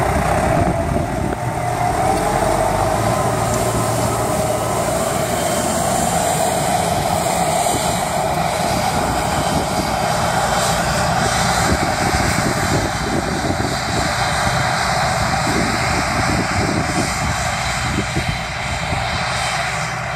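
Case IH JXU 105 tractor working under load, pulling a Gaspardo Pinta 400 pneumatic seed drill while sowing: a steady diesel engine drone mixed with the steady whine of the drill's seed-blowing fan.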